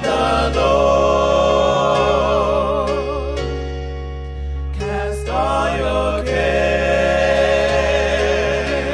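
Gospel singing, a lead singer and choir voices with a wide vibrato, over sustained electronic keyboard chords. The voices briefly thin out about five seconds in, then come back in.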